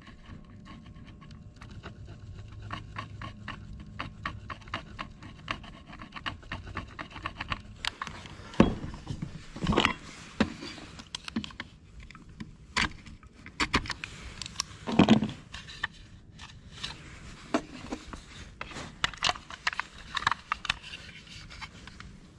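Hard plastic switch panel being scraped and trimmed with a utility knife: a rough, uneven scraping with several sharp knocks, the loudest about halfway through. Before that, a few seconds of faint steady low hum and light ticking.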